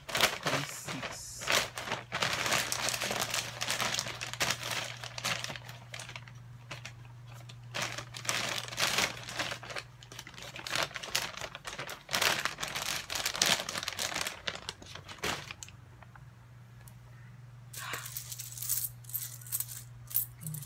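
Plastic shopping bag rustling and crinkling close by in repeated bursts, over a steady low hum. It dies down about fifteen seconds in, leaving a few light scratches near the end.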